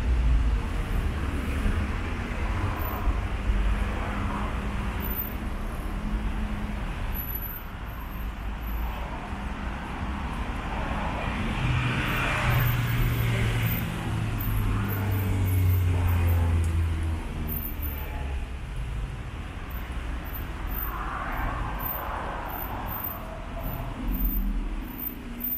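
City street traffic: cars passing with a continuous low rumble and tyre noise. A heavier vehicle's low engine hum stands out for about five seconds in the middle.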